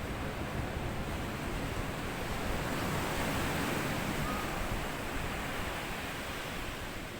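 Small sea waves washing up onto a sandy beach. The wash swells to its loudest about halfway through, then eases off.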